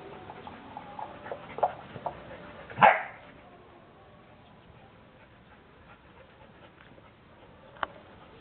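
Border Collies giving a few short yips and whines while they wrestle in play, the loudest call about three seconds in, then quieter. A single sharp click near the end.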